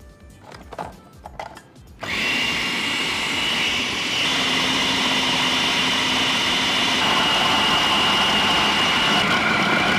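Deluxe Chopper AG-3140 electric food processor switched on about two seconds in, its motor running steadily with a high whine as the blade kneads flour, yeast and water into dough.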